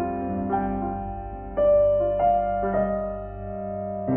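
Slow piano music: single notes struck one after another over held lower notes, each left to ring.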